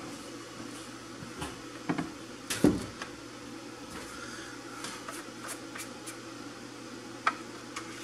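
A few knocks and thumps as a plastic oil jug and funnel are handled and set down, the loudest about two and a half seconds in, over a steady background hum.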